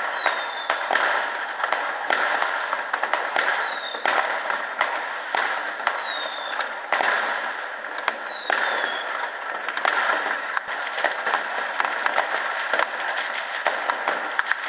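Many fireworks going off at once: a dense, continuous crackle of pops and bangs, with four high whistles falling in pitch during the first nine seconds or so.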